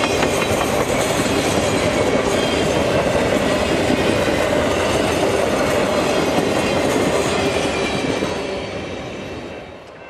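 Triple Crown RoadRailer train, highway trailers riding on rail bogies, rolling past with a steady clatter of wheels on rails. The sound fades away over the last couple of seconds as the end of the train goes by.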